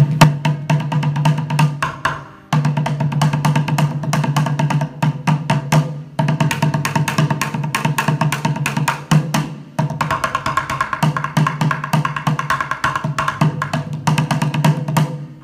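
Bucket drumming: wooden drumsticks beating fast, dense rhythms on an upturned plastic bucket, with a low ringing thud from the bucket under rapid stick clicks. The playing breaks off briefly a few times.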